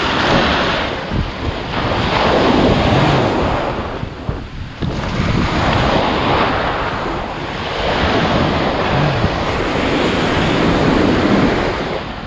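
Ocean surf breaking and washing up around the feet, the noise swelling and easing every few seconds with a brief lull about four and a half seconds in. Wind buffets the microphone throughout.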